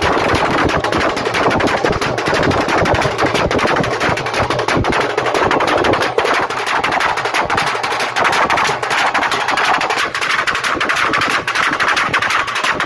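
Deewari dance drumming: a drum beaten in fast, unbroken rolls of sharp strokes, loud and dense throughout.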